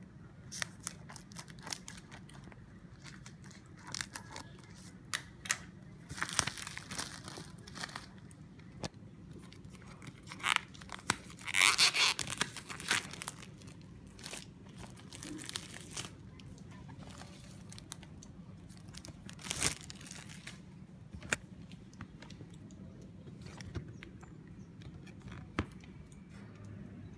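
Clear plastic shrink-wrap being torn and peeled off a cardboard retail box, in irregular bursts of crinkling and tearing with scattered sharp clicks. The loudest tearing comes a little before the middle.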